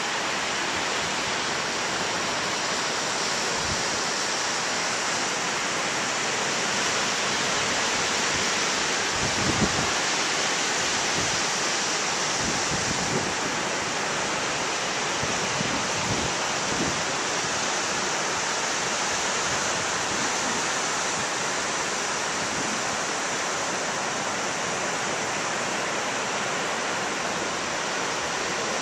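Ocean surf breaking on a sandy beach: a steady, unbroken wash of rushing noise, with a few low thumps about halfway through.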